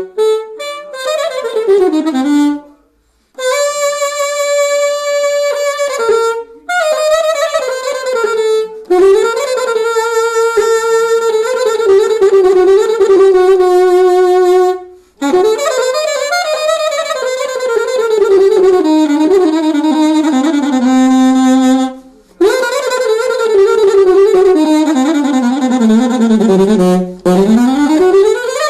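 Saxophone played solo, with no accompaniment: winding melodic phrases of quick ornamented runs and a few long held notes, broken by short gaps between phrases.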